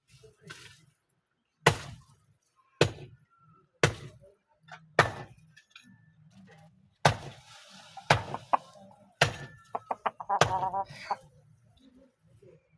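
Aseel fighting roosters sparring: eight sharp thwacks of strikes and wing blows, roughly one a second, some in quick pairs.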